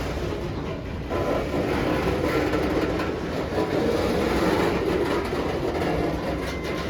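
A train rolling past: a steady rumble of wheels on rail, growing slightly louder about a second in.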